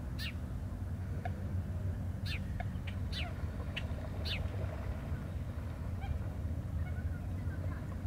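Birds calling: several short, sharp chirps, each sweeping downward in pitch, spaced a second or so apart over the first half, over a steady low hum.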